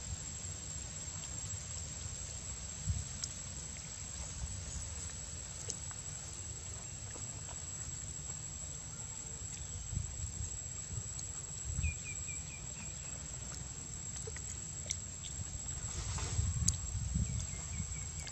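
Outdoor ambience: a steady high-pitched insect trill over a low rumble, with two short runs of four or five quick high chirps, about twelve seconds in and again near the end, and scattered light clicks and scuffles.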